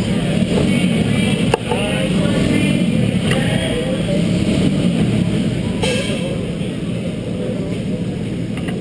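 Echoing din of an indoor quarter-midget race hall: small racing engines running, with voices mixed in. A sharp knock about a second and a half in.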